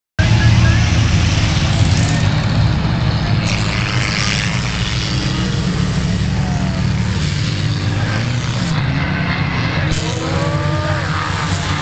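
Engines of a pack of old cars racing together around a dirt track, a loud steady rumble.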